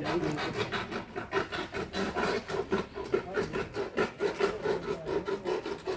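Fast, even scraping strokes, about five a second.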